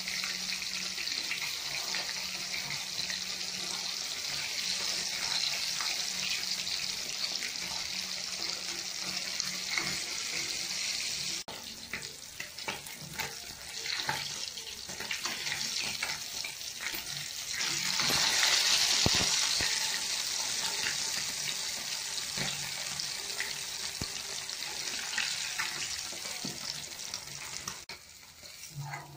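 Marinated fish pieces deep-frying in hot oil in an aluminium kadai, a steady sizzle, with the steel spoon now and then clinking against the pan as the pieces are turned. The sizzle is loudest a little past the middle.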